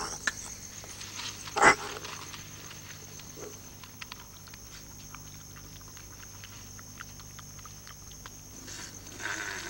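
Paca cries, resonated by the hollow chamber in its skull: one short, loud call about one and a half seconds in and another starting near the end, with a steady high whine and faint ticking between them.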